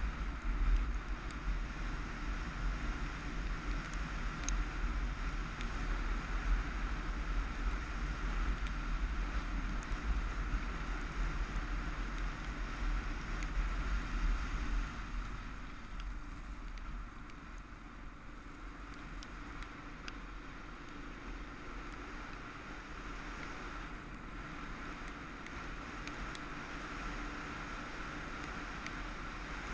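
Motorcycle riding along a gravel road: the engine runs steadily under heavy wind buffeting on the camera microphone. It gets a little quieter about halfway through.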